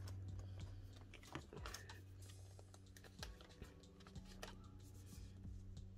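Faint small clicks and plastic rustles of photocards and binder sleeves being handled, with a binder page being turned.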